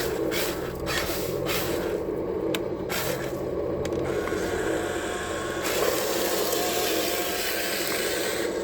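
Small electric motors and gearboxes of RC construction models whining steadily, with scattered clicks in the first few seconds. After about six seconds a broad hissing rush joins in.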